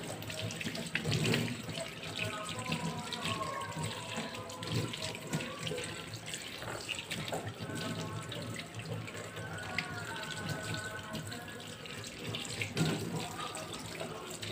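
Tap water running into a stainless-steel sink, splashing over small mackerel tuna as they are rinsed and rubbed clean by hand.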